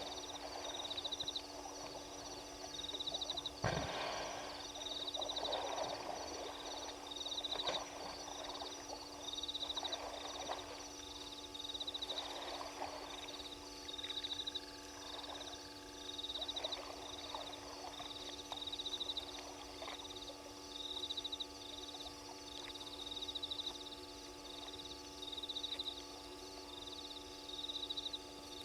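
Frogs calling at night at a waterhole: short high trills repeating about once a second, with lower rasping croaks every couple of seconds, over a steady low hum.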